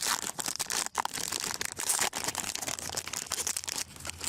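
Crinkling and rustling as a pack of trading cards and its wrapper are handled, in quick irregular crackles.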